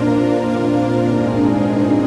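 Background music: soft, sustained ambient keyboard tones.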